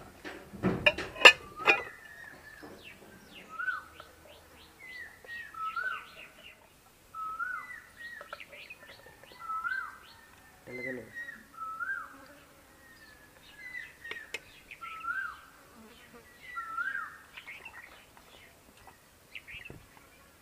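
A bird calling over and over, a short whistled note that rises and then drops, every second or two. A quick run of sharp knocks about a second in is the loudest sound.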